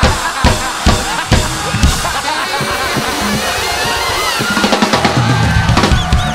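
Music led by a drum kit: sharp kick and snare hits in the first couple of seconds, then a bass line joins more strongly after about four and a half seconds.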